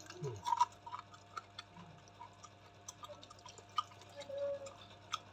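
Person eating close to the microphone: irregular short clicks and smacks of chewing and mouth sounds.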